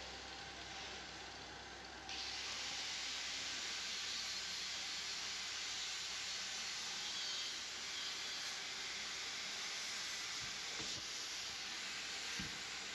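A steady hiss that steps up in level about two seconds in and then holds, with a few faint knocks near the end.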